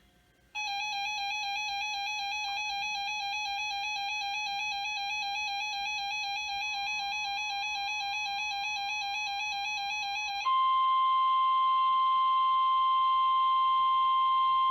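A warbling electronic alert tone lasts about ten seconds. It then gives way to the steady, louder 1050 Hz NOAA Weather Radio warning alarm tone that comes before a broadcast warning message.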